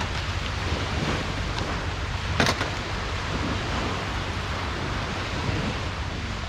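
Wind and sea surf rushing steadily at the shore, with wind buffeting the microphone in a low rumble. A single sharp click comes about two and a half seconds in.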